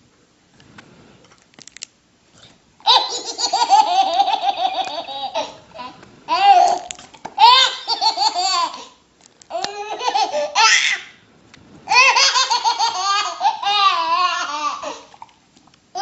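Baby in a fit of high-pitched belly laughter: long bouts of laughing start about three seconds in, broken by short pauses for breath.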